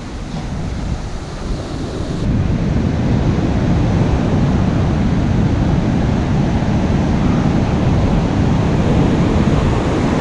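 Ocean surf washing and breaking on a sandy beach, with wind rumbling on the microphone. The sound changes abruptly about two seconds in and is a little louder after that.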